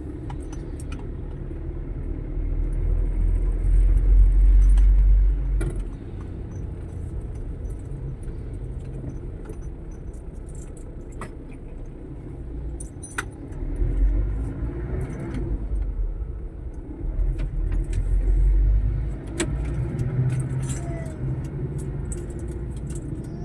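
Motor vehicle engine and road noise in traffic: a steady low rumble that swells louder three times, with scattered light rattling clicks.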